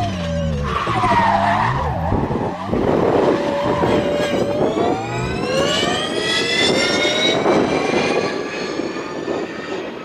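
Škoda Fabia rally car's turbocharged four-cylinder engine driven hard. The pitch falls and wavers at first, breaks off briefly about two and a half seconds in, then climbs steadily as the car accelerates.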